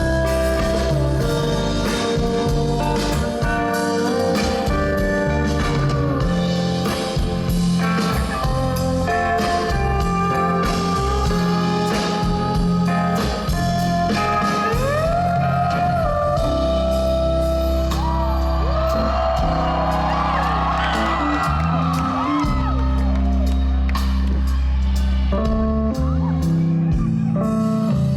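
A live band plays an instrumental passage with bass, drums and guitar. Through the middle a steel guitar slides between notes in curving glides.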